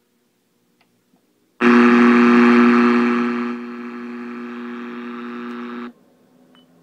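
Mazda cassette car stereo's AM radio coming on untuned: a loud hiss of static with a steady buzzing hum starts about one and a half seconds in. It drops in level about two seconds later, then cuts off suddenly as the tuning moves on.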